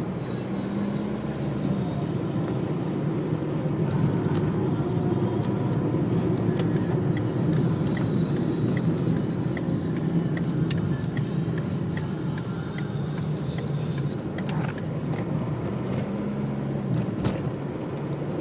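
Car engine and road noise, a steady low rumble that swells through the middle and eases near the end, with scattered sharp clicks.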